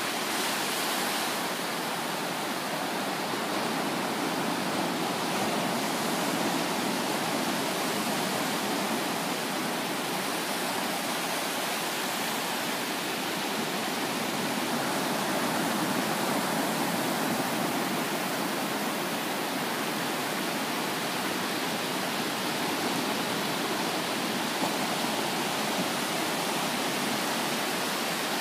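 Ocean surf on a flat sandy beach: low waves breaking and washing up the sand in a steady, unbroken rush.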